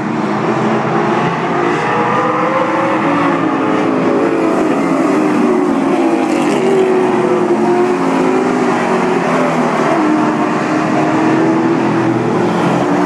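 Several race car engines running at speed together, their pitches rising and falling as the cars circle the track.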